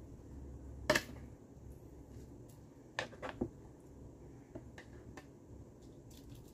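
Utensil scraping and knocking against a plastic bowl while filling is pushed out of it into a pot. There is one sharp knock about a second in, three quicker knocks around three seconds in, and faint light clicks between.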